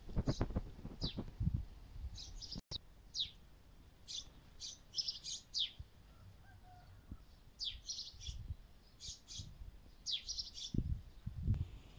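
Small songbirds chirping: many short, high chirps that sweep downward, coming in quick clusters. A low rumbling noise underlies the first second or so and returns near the end.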